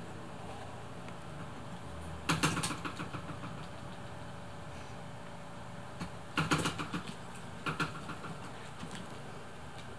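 Plastic bag crinkling in three short bursts as a cat paws and noses at it, over a steady low hum.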